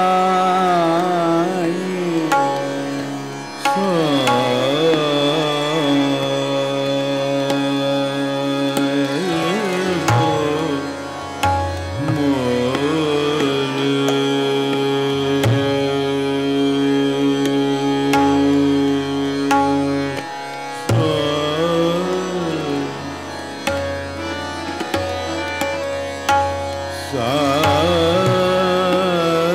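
Hindustani classical male voice singing long, gliding, ornamented phrases of a raga, with short breaks between them. Harmonium and tanpura hold steady tones beneath, and tabla strokes with a deep bass drum come in from about ten seconds on.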